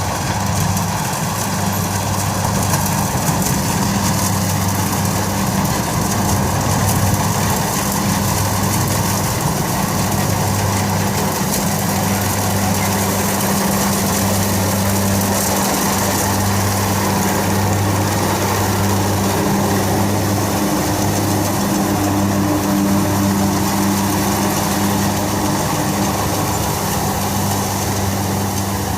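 Kubota DC60 combine harvester's diesel engine and machinery running steadily, with a low hum that wavers in strength.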